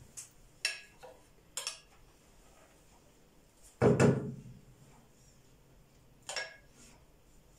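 A metal spoon clinking against a metal bowl of melted ghee, three short ringing clinks spread out, with one louder, duller knock about four seconds in.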